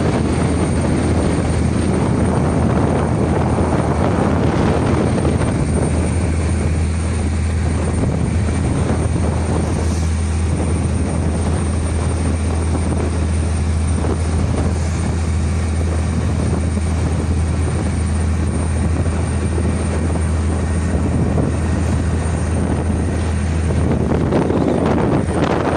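A steady low motor drone with a rushing wash of noise over it, unchanging throughout.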